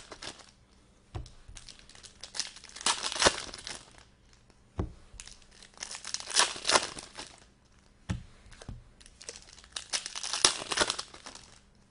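Trading card pack wrappers being torn open and crinkled by hand. The crinkling comes in several bursts a few seconds apart, with a few sharp clicks between them.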